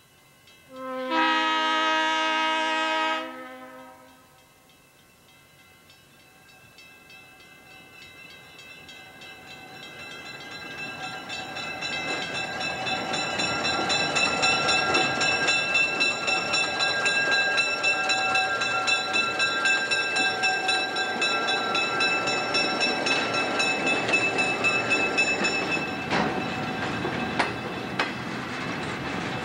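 Soo Line diesel locomotive sounding one horn blast of about two seconds, a second in. It then approaches and passes close by, its rumble building to a loud, steady level with a thin high whine running over it.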